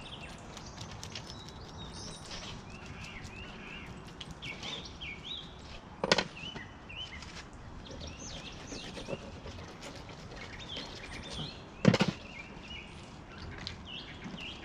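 Wild birds chirping and singing throughout, with two loud, sharp knocks, one about six seconds in and one near the end.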